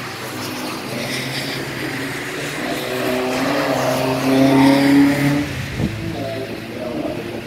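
Race cars passing one after another on a wet track, engines running hard; the loudest pass comes about four to five seconds in, then the sound fades.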